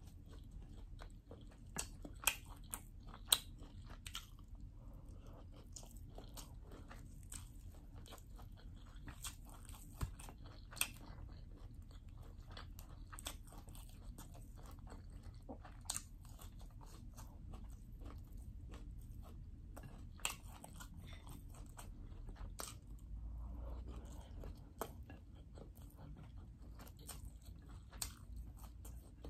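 A person chewing and crunching mouthfuls of chicken fried rice, with sharp mouth clicks scattered throughout, loudest between two and three and a half seconds in.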